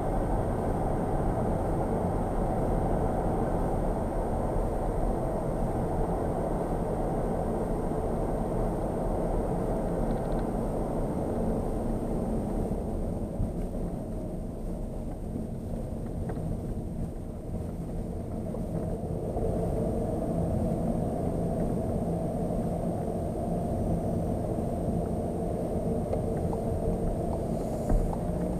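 Inside the cabin of a Skoda Octavia RS with the 2.0 TDI four-cylinder diesel, the engine runs with tyre and road noise as the car slows down. It goes quieter for a few seconds past the middle, then the engine note comes back fuller as the car picks up again.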